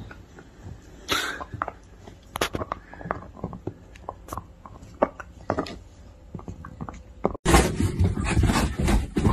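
Jack Russell terrier sniffing and rooting with its nose in a bedsheet, giving short breathy puffs among fabric rustles and small clicks. Near the end the sound changes abruptly to a louder, dense, continuous noise.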